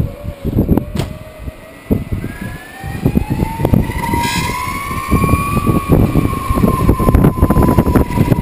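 Electric skateboard motor whining, its pitch rising steadily through the first half as it speeds up and then holding. Under it the wheels rumble on the asphalt and wind buffets the microphone.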